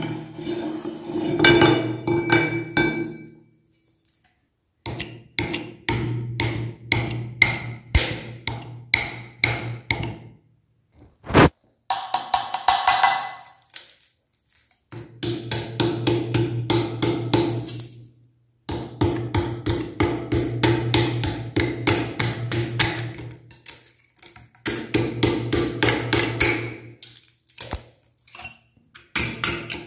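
A metal tool scraping and knocking at hardened lollipop candy packed inside a meat grinder's barrel, in quick irregular clicks and taps, broken by several short silences.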